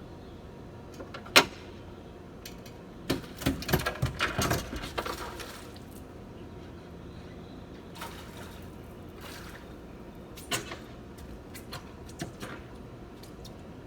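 A sharp knock, then a run of clattering knocks and rattles lasting about two seconds, and a few lighter clicks later on, over a steady background hiss.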